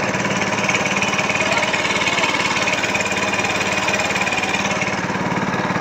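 A small boat engine running steadily at an unchanging speed.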